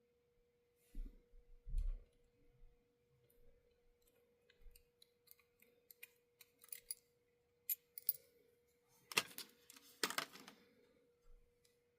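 Small metal parts and tools being handled while working on an HO-scale model locomotive: scattered light clicks and taps, two soft thumps about a second in, and a burst of louder clicking and scraping near the end, over a faint steady hum.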